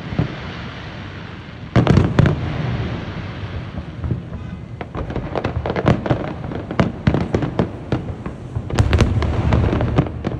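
Aerial fireworks going off: a loud burst about two seconds in, then a long run of rapid crackling pops, with a denser, louder cluster near the end.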